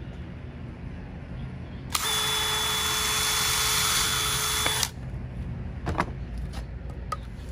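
Cordless drill with a countersink bit running at a steady pitch for about three seconds, pre-drilling a screw hole in an old wooden board, then stopping. A few light knocks follow.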